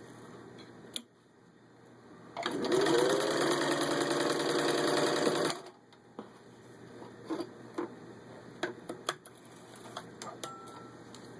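1951 Singer 15-91 sewing machine stitching through four layers of vinyl upholstery. It speeds up a little over two seconds in, runs steadily for about three seconds, then stops, followed by scattered light clicks.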